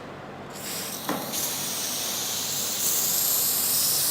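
Aerosol can of liquid penetrant spraying in a steady hiss, starting about half a second in, as penetrant is applied to a weld for liquid penetrant testing. A short click about a second in.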